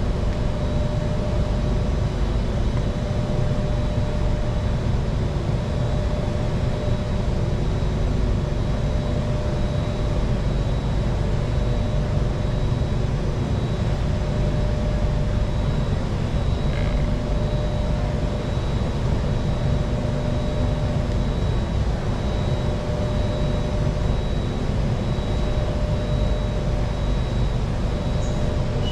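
Singapore MRT train running at steady speed, heard inside the carriage: a constant low rumble with a faint steady whine over it.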